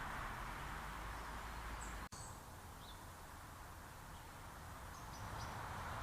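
Steady background noise with a few faint, short, high bird chirps. The sound cuts out for an instant about two seconds in and is a little quieter afterwards.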